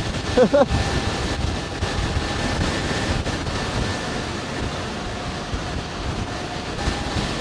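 Wind rushing steadily over the microphone of a rider at high speed on an electric scooter, riding into a headwind.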